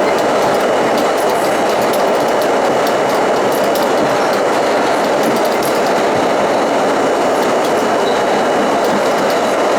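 R32 subway car running on the rails: a steady, loud rumble of wheels on track, with faint scattered clicks throughout.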